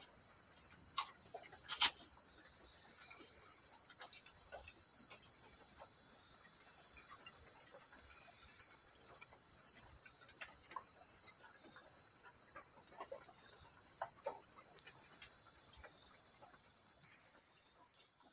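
A continuous chorus of insects, crickets by the sound of it, holding a steady high-pitched drone, with scattered faint clicks and one sharper tap about two seconds in. It fades out near the end.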